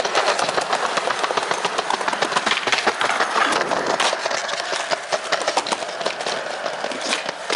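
Skateboard wheels rolling fast over a tiled concrete plaza: a steady rolling noise with many small clicks as the wheels cross the tile joints.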